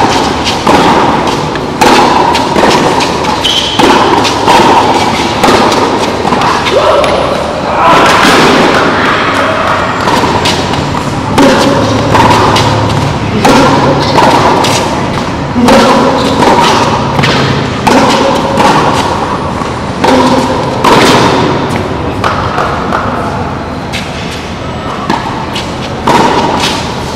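Tennis rally: a ball struck back and forth with racquets, sharp hits coming roughly every two seconds, echoing in a covered hall.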